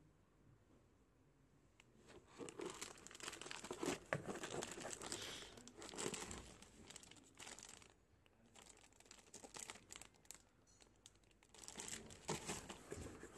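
Sealed plastic electrode pouches crinkling and rustling as they are handled in a cardboard box, starting about two seconds in, easing off briefly in the middle and picking up again near the end.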